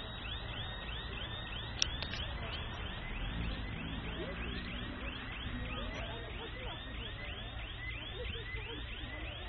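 An electronic siren warbling rapidly and without a break, about three quick rise-and-fall sweeps a second, over a low rumble, with a single sharp click about two seconds in.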